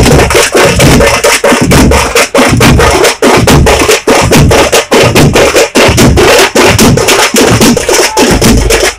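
A tamate drum band playing a loud, fast beat: sticks strike the drumheads many times a second over heavy bass-drum beats.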